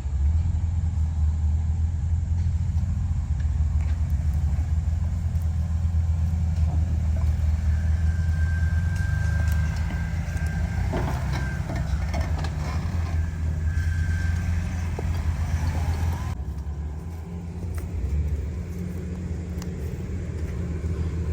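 Off-road Jeep engine running, a steady low rumble, as it works up a rocky trail obstacle.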